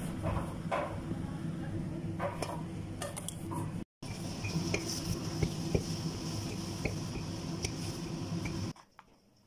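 Kitchen cookware and utensil clatter, with scattered light clicks and clinks of metal over a steady low hum; the sound drops away sharply near the end.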